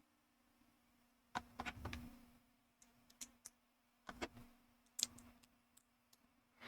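Plastic building bricks being handled and pressed together, giving a scattered series of faint clicks and snaps.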